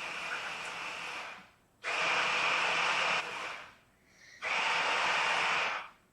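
Cartoon pig snort, a long noisy sound made three times with short gaps, each lasting about a second and a half.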